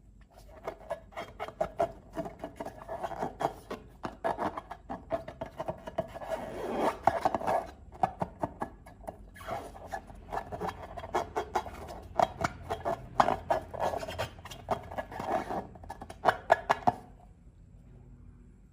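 Slime being worked and squished: a dense run of crackling clicks and rubbing that stops about two seconds before the end.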